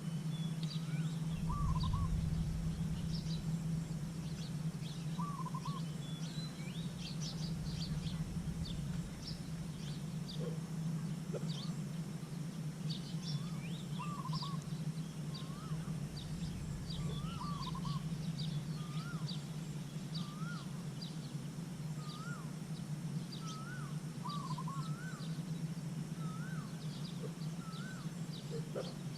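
Outdoor birdsong: a bird repeating a short rising-and-falling call every second or two over many brief high chirps, with a steady low hum underneath and a few bouts of low rumble.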